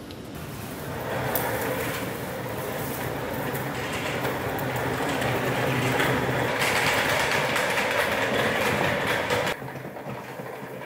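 Office chair's casters rolling across a concrete garage floor under a load of bags, a steady rattling rumble with small clicks. It drops off sharply about nine and a half seconds in.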